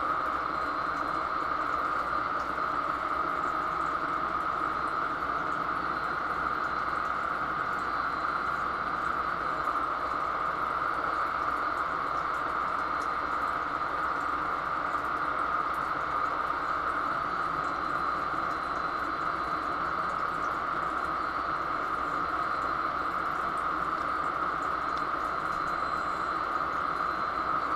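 Steady background machinery noise, an even hiss over a low hum, with no change and no distinct knocks.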